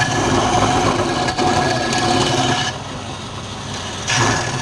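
Wood lathe running with a steady motor hum, and the rushing scrape of a turning tool cutting the spinning wood. The cutting drops away about two and a half seconds in and starts again near the end.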